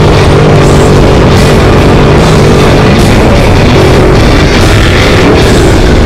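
Loud rock music with a steady, dense drive that does not let up.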